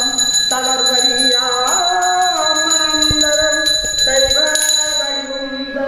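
Devotional music: a held, sliding melody over bells ringing in rapid strikes, with a steady high ringing tone; the strikes thin out near the end.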